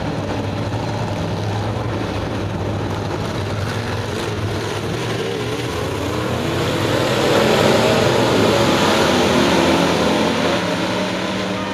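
A pack of crate V8 dirt-track modified race cars running laps under green. Their engines make a steady drone that swells as the field passes close about six seconds in, then fades again about four seconds later as the cars head away.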